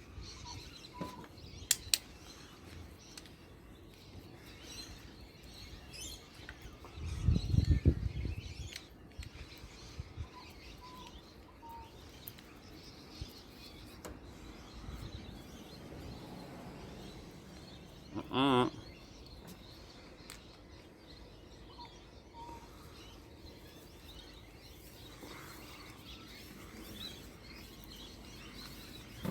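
Birds chirping in the background, with a few sharp clicks, a louder low rumbling thump about seven seconds in, and a brief wavering call around two-thirds of the way through.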